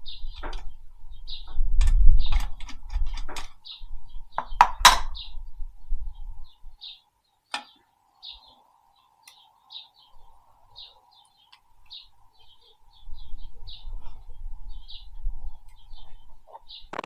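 A few sharp knocks and clinks, the loudest about 2 and 5 seconds in, with a small bird chirping again and again throughout.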